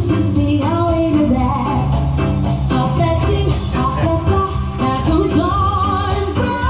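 Live band music with a singer's voice over guitar, bass and a steady beat.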